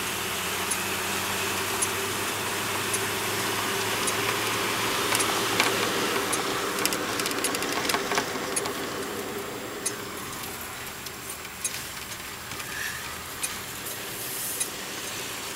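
1962 Ford Fairlane's 200 cubic inch straight-six running steadily while driving, with its cylinder head freshly rebuilt, heard from inside the cabin with road and tyre noise. A light click comes about once a second, and there are a few scattered rattles.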